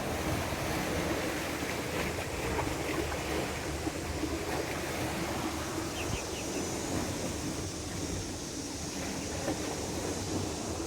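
Steady sea surf washing on a beach, mixed with wind rumbling on the microphone.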